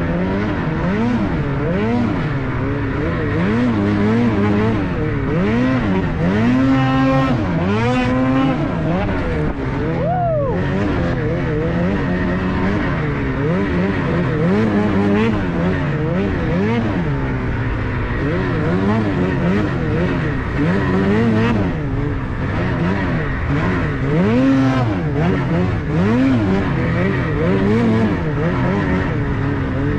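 Snowmobile engine revving up and down over and over as the throttle is worked. There is a brief let-off with the pitch dropping about ten seconds in.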